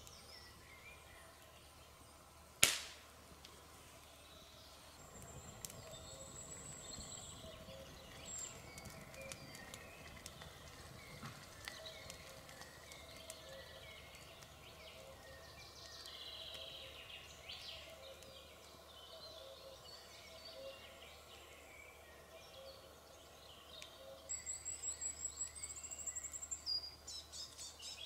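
Forest songbirds chirping and trilling around a burning Swedish torch log fire, which crackles faintly and gives one sharp, loud pop a few seconds in. Near the end a high, rapid bird trill comes in louder.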